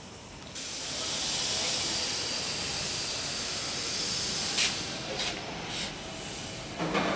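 A steady rushing hiss of air that starts abruptly about half a second in, with three light knocks a little past the middle and a brief louder sound near the end.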